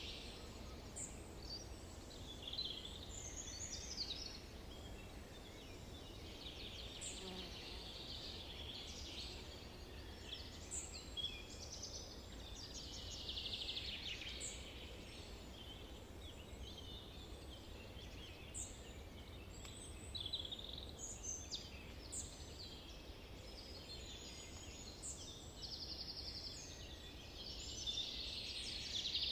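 Several wild birds singing and calling at once: overlapping chirps, quick trills and high short notes, over a low steady rumble of background noise.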